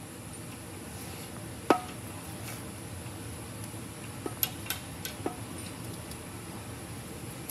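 Steel adjustable wrench clinking against the bolts of a harmonic balancer puller on an LS engine's crank pulley: one sharp clink about two seconds in, then a quick run of four or five lighter clinks around the middle.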